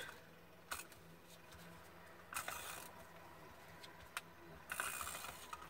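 Glue tape runner drawn along kraft card, then paper pressed down by hand: quiet handling noise with a few light clicks and two short swishes, one near the middle and one near the end.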